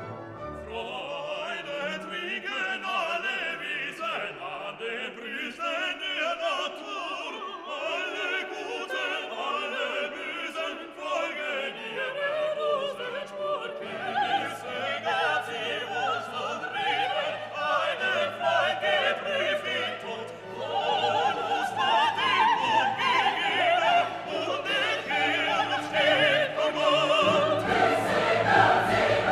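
Classical orchestral music with operatic singing voices and a choir, growing louder about two thirds of the way through as deeper instruments join.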